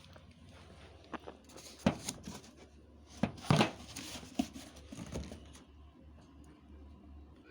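Handling noise from unboxing: a run of sharp clacks and short rustles for a few seconds as parts and packaging are moved, then it settles to a low background hum.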